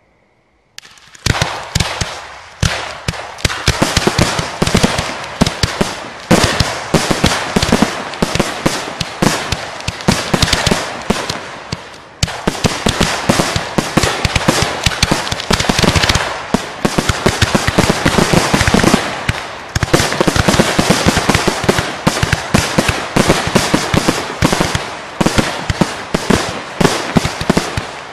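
A rapid, unbroken barrage of fireworks bangs and crackle from shells launching and bursting. It starts abruptly about a second in and runs densely on, easing off for a moment near the middle before picking straight back up.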